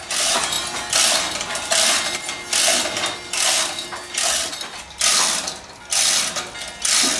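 Hand chain hoist hauling a bell up: the chain clattering through the block in regular pulls, about one every 0.8 s, nine pulls in all.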